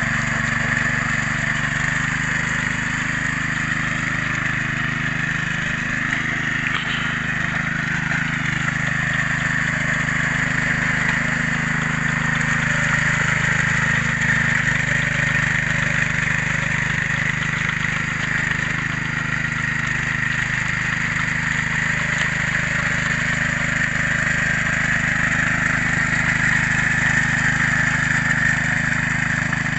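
Small Honda petrol engine of a two-wheel hand tractor running steadily under load, driving its cage wheels through the mud of a flooded rice paddy.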